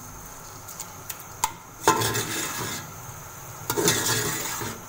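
Slotted metal spoon stirring ground spinach in a large aluminium pot: a few light clinks, a sharp knock against the pot about two seconds in, and two spells of scraping against the pot's bottom and sides.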